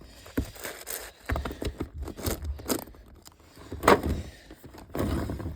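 Plastic puzzle cubes being handled: irregular clicks, clacks and scrapes of plastic pieces, the loudest knock about four seconds in.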